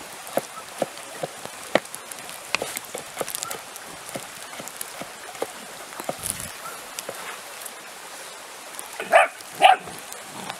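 Puppy yipping twice, short and high, near the end, over scattered light ticks and crackles.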